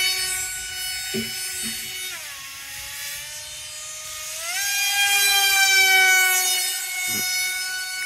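Motor of a remote-control Su-30 model jet in flight, a steady whine with many overtones. Its pitch drops about two seconds in, holds low, then climbs back up about four and a half seconds in.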